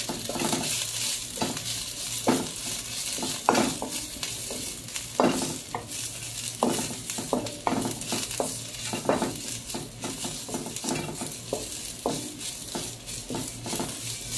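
Dried molokhia (jute mallow) leaves and garlic sizzling in a non-stick frying pan as they are stir-fried. The steady hiss is broken by irregular scrapes and knocks of a wooden spatula against the pan, about one every second or so.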